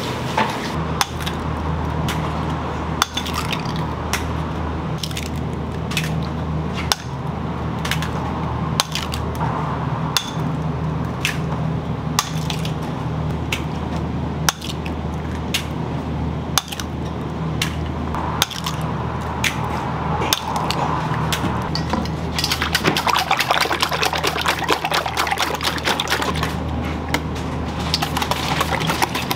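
Boiled eggs being handled in water: scattered sharp clinks and taps with splashing, and a stretch of running or splashing water about three-quarters of the way through, over a steady low hum of kitchen equipment.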